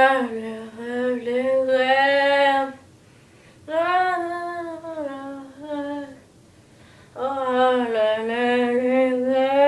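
A boy's voice singing unaccompanied in three long held phrases, with short pauses between them.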